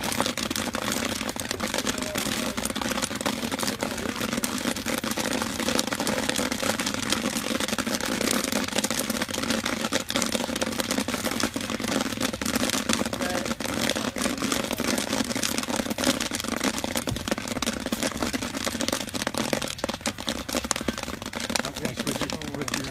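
Kettle corn popping in a large cast-iron kettle: a dense, continuous crackle of kernels bursting while the corn is stirred with a wooden paddle.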